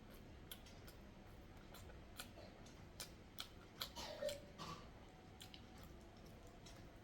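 Soft chewing of boiled egg, with sharp wet mouth clicks and lip smacks scattered through it and a cluster of louder smacks about four seconds in.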